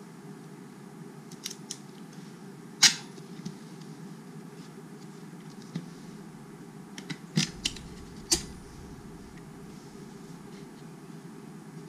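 Stiff cardboard camera box being opened by hand: a scattering of sharp clicks and taps as its flaps are pulled loose and folded out, the loudest about three seconds in and a cluster near the end, over a steady low background hum.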